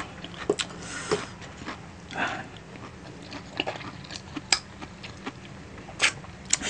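Close-miked eating of saucy chicken feet: chewing and biting, with scattered wet mouth smacks and clicks, the sharpest near the end.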